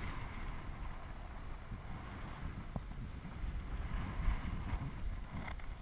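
Wind noise on the microphone during paraglider flight: a steady, gusty low rumble of air rushing past.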